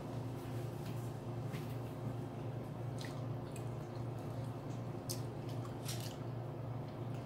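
Eating at close range: wet chewing and mouth smacks, with a few short sharp clicks spread through, over a steady low hum.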